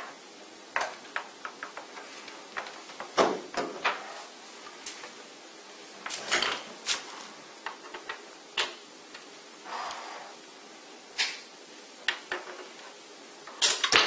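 Irregular clicks, knocks and brief rustles from handling a plastic microcentrifuge, its power cord and a plastic bag on a table, with its hinged plastic lid being opened in the last few seconds.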